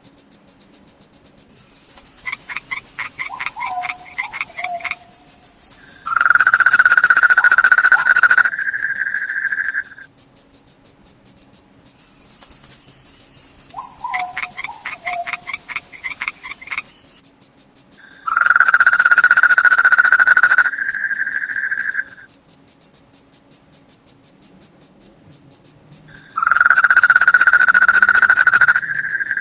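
Night insects: crickets chirping in a steady, fast, high-pitched pulse, overlaid three times by a louder buzzing call a few seconds long. Twice a quick run of clicks ends in a short falling call.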